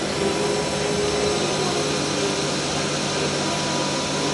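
Steady whirring noise of running machinery, with a few faint steady whining tones and no change in level.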